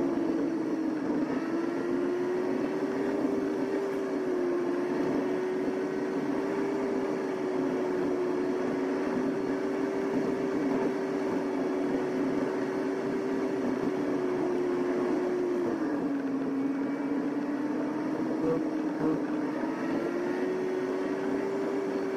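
A vehicle on the move: a steady motor hum and whine over a rushing noise, its pitch dropping about two-thirds of the way through and rising again near the end.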